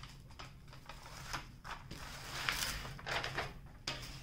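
Plastic protective cover film being peeled back from the adhesive surface of a diamond painting canvas, crackling and rustling in irregular bursts, loudest about two and a half seconds in.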